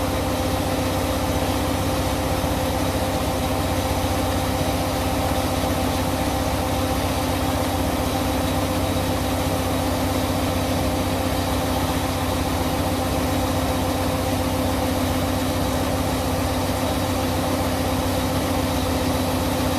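Wheat harvesting machine running at a steady speed: a constant engine hum with several steady tones over a dense rushing noise.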